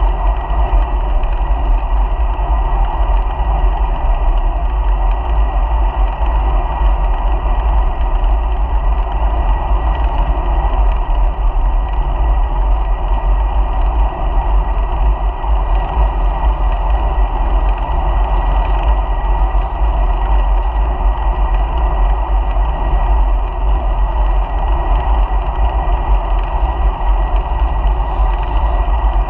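Wind buffeting and road vibration on a bicycle-mounted GoPro during a ride: a steady rush with heavy low rumble and a thin steady tone above it.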